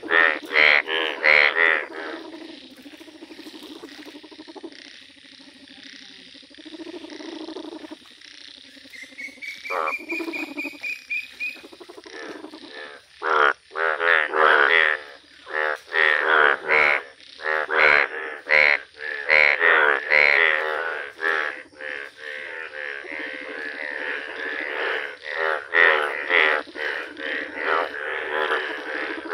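A chorus of male Indian bullfrogs in breeding colour, yellow with blue vocal sacs, giving loud pulsed croaks in quick runs. The croaking is thinner for several seconds in the first half and then dense again.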